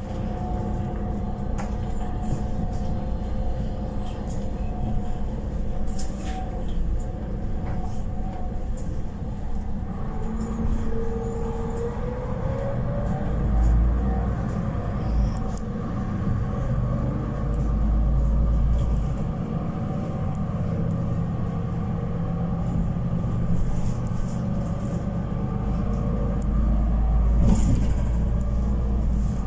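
Inside a moving city bus: steady engine and road rumble with a faint drive whine. About a third of the way through, the whine rises in pitch, and the low rumble swells in stretches.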